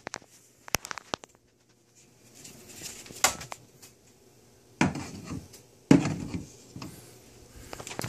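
Handling noise from a phone being moved about: a few sharp clicks and knocks in the first second or so, then several short rubbing thumps with quiet between.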